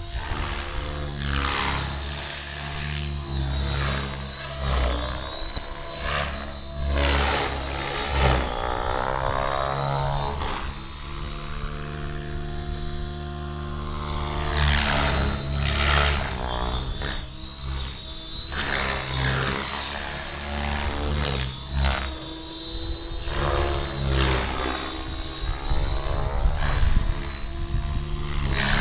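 Helicopter flying overhead, its rotor beating with a steady whump-whump; the pitch of the engine and rotor note sweeps down and back up several times as it passes and circles.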